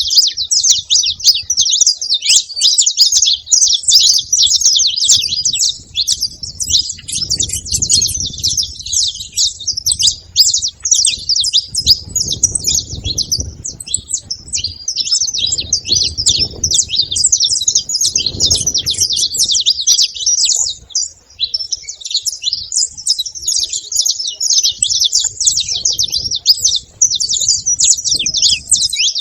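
Several saffron finches chirping and singing at once in a dense, continuous, high-pitched twittering chatter.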